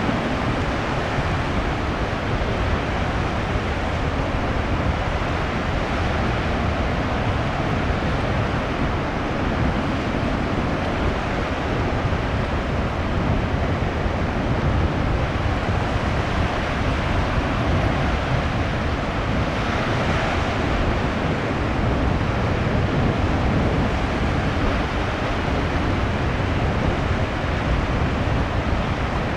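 Heavy post-typhoon surf breaking on the shore: a steady, loud wash of crashing waves, with one break a little brighter about two-thirds of the way through.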